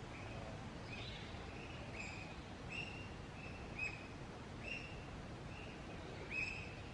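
A bird calling in short, clipped notes, about one a second, over a steady low outdoor background noise.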